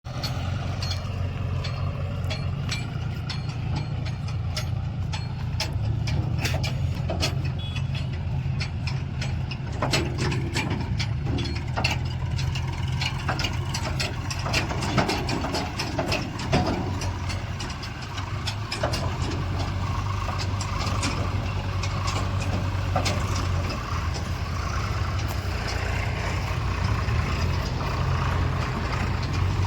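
Diesel engines of a backhoe loader and a tractor running steadily while digging and loading mud, with frequent knocks and clanks through the middle.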